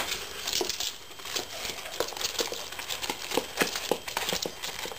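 Irregular light clicks and rustling, several a second, from a green-cheeked conure chick moving and being handled while it is weighed on a scale.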